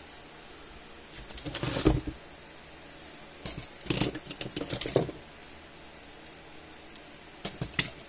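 Hand tools clinking and clattering on a workbench as they are picked up and set down, in three short bursts of rattling clicks.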